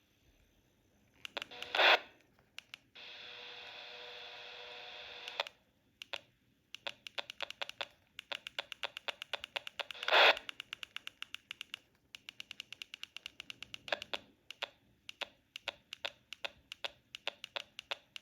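TYT TH-UV99 handheld radio's speaker clicking rapidly as channels are stepped through, about three or four clicks a second with two louder short bursts. The clicks come while the radio should be silent under squelch, which the uploader calls a strange fault. A steady buzzy tone sounds for about two and a half seconds near the start.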